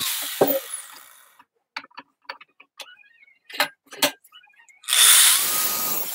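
Angle grinder with a worn-down abrasive cut-off disc: the cut stops and the disc runs down over about a second, followed by a few scattered clicks and knocks. About five seconds in, the grinder bites into the steel bar again with a sudden loud cutting noise.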